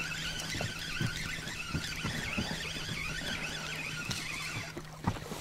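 Spinning reel being cranked to retrieve a hooked perch: a steady whirring with a wavering whine that stops near the end.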